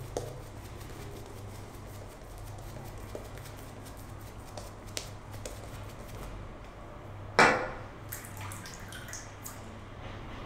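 Omega S-Brush synthetic shaving brush working lather on the face, faint and wet. About seven and a half seconds in, a brief loud splash of water at the sink.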